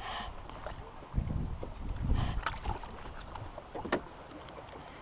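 Wind buffeting the microphone on a small fishing boat in irregular low gusts, with a few splashes and knocks. The sharpest knock comes about four seconds in.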